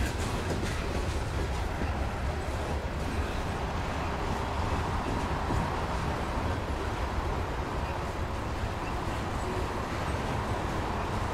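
Freight train's boxcars rolling slowly past, a steady low rolling noise of steel wheels on rail.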